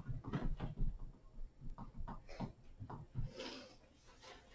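Low classroom background noise: scattered small knocks and shuffles, with a brief hiss about three and a half seconds in.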